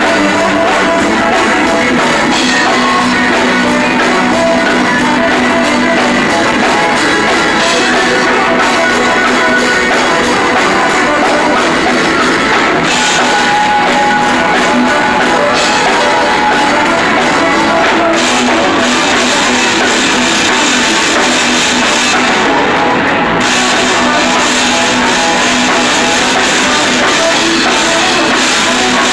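Live rock band playing at a steady, loud level, with drum kit and guitar.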